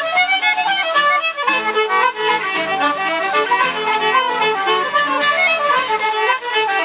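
Irish traditional dance tune set played with fiddle carrying a fast melody over band accompaniment. The lower accompaniment fills out about a second and a half in.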